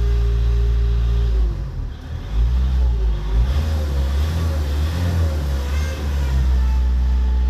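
Ford Mondeo Mk4 2.0 TDCi diesel engine running with its power steering system. About a second and a half in, the steady hum gives way to tones that rise and fall for several seconds, then settles back to a steady hum near the end.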